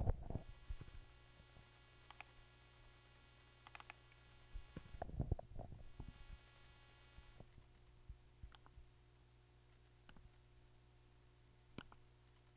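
Faint, scattered clicks of a computer mouse, with a few soft thumps near the start and about five seconds in, over a steady low electrical hum. A faint high whine stops about seven seconds in.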